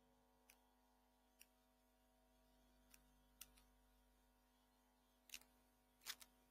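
Near silence: a faint steady hum, with about seven faint, irregular clicks, the loudest a little before the end.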